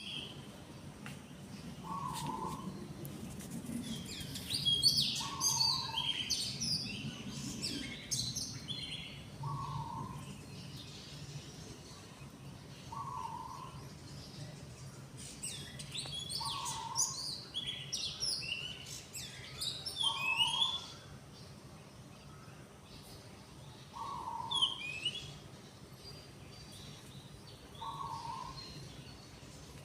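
Morning birdsong from several birds: one repeats a short low call every three to four seconds while others break in with bursts of quick high chirps and trills.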